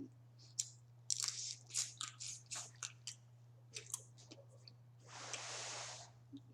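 Close-up eating of boiled crawfish: a run of short crackles and clicks as shells are cracked and peeled and the meat chewed, then a rush of noise lasting about a second near the end, over a steady low hum.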